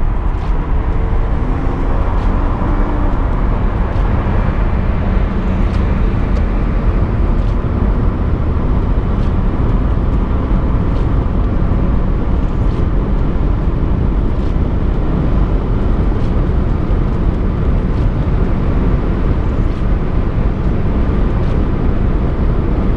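A car under way: a steady low rumble of engine and road noise, with the engine note rising for a second or two near the start.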